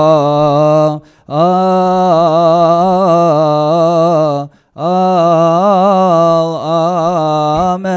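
A single male voice chanting a Coptic Orthodox liturgical melody: long melismatic phrases of held, wavering notes, broken by two short breath pauses about one second and four and a half seconds in.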